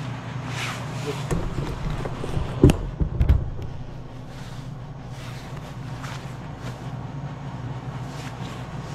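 Rustling and handling of clothing and packaging, with a few sharp knocks about three seconds in, over a steady low hum.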